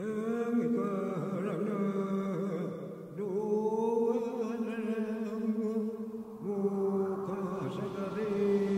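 Chanted singing in long held notes, the pitch wavering slightly, with short breaks about three seconds in and again about six and a half seconds in.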